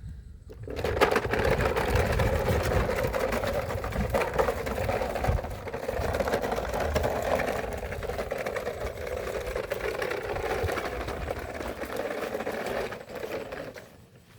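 Battery-powered toy vehicle's small electric motor and gears whirring steadily as it drives along, starting about a second in and stopping near the end.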